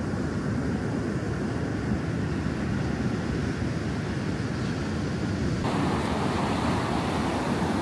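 Steady wind noise on the microphone, heavy at the low end, over the hiss of ocean surf. About two-thirds of the way in it turns suddenly brighter, with more surf hiss.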